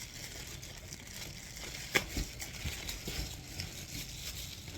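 Packaging being handled, crinkling and rustling, with a sharp tap about two seconds in and a few lighter ticks after it.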